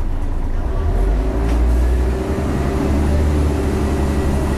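Scania L113CRL bus's rear-mounted 11-litre six-cylinder diesel engine running, heard from inside the saloon as a steady low drone that grows louder about a second in.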